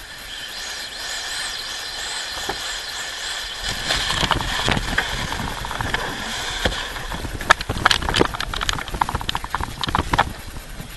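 Sailcloth rustling and crinkling as it is handled and pulled through the foredeck hatch, growing denser about four seconds in. In the second half comes a quick run of sharp crackles and snaps from the stiff cloth.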